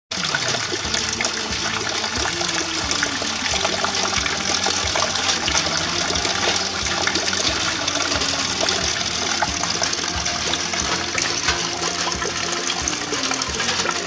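Steady rain, with water pouring into a brimming plastic bucket and splashing on its surface.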